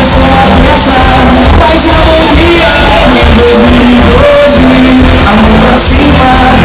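Loud live band music with a singer over a heavy, steady bass and regular cymbal strokes. The recording is close to overloading.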